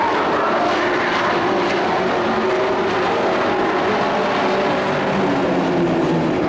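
Engines of several racing pickup trucks running hard in a heat race, a steady loud drone of overlapping engine notes that rise and fall slightly.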